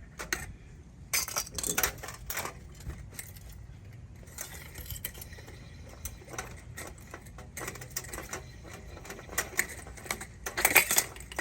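Small metal parts of a ceiling fan clinking and rattling as they are handled and pulled apart by hand: scattered clicks and taps, with a louder burst of clattering near the end.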